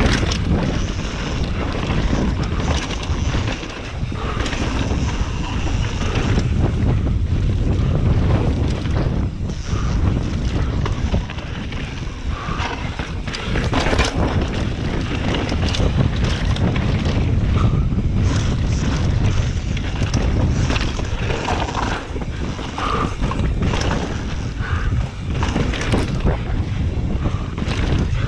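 Wind rushing over an action camera's microphone during a fast mountain-bike descent on dirt singletrack, a heavy steady rumble. Through it come irregular knocks and rattles from the Yeti SB150 full-suspension bike's chain and frame as its tyres hit bumps and rocks.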